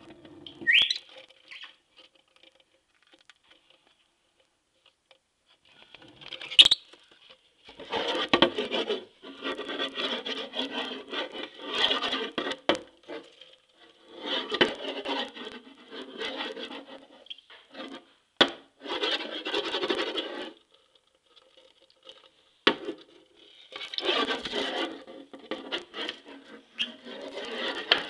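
Repeated bursts of scratching and scrabbling on the wooden floor of a drawer, each lasting a few seconds, with a few sharp knocks between them and a short rising chirp near the start.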